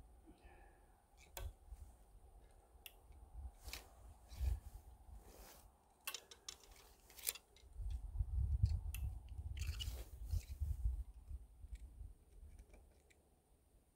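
Scattered small clicks and crunches from an archer shifting on packed snow and handling his bow and arrows. Partway through there are a few seconds of low rumble on the microphone.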